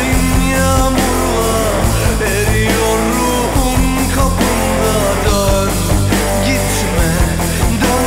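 Rock music playing loud and continuous, with guitar and pitch lines that glide and bend through the mix.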